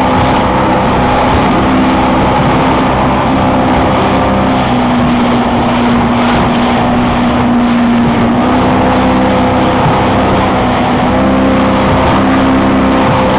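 Motorboat engine running steadily at speed while towing an inflatable ride, over the rush of water from the wake. Its pitch sags slightly about five seconds in and picks up again around eight seconds.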